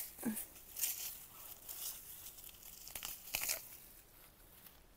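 Grama (Bermuda grass) and weeds being pulled up by hand: dry stems and roots rustle and tear in a handful of short crackling bursts over the first three and a half seconds, then it goes quieter.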